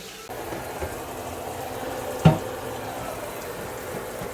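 Tap water running steadily into a kitchen sink, with one sharp clatter of a dish or utensil a little over two seconds in.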